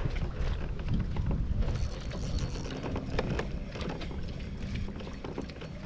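Low wind rumble on the microphone out on open water, with scattered small clicks and knocks of fishing gear against a kayak.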